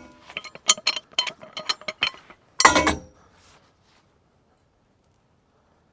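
Metal-on-metal clinks and taps as a pipe wrench is worked onto a steel pipe clamped in a hitch vise, then one loud metallic clank about two and a half seconds in.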